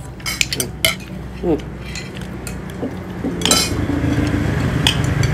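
Spoons clinking and scraping on plates as several people eat, in scattered sharp clinks. A low steady hum grows in the background from about halfway through.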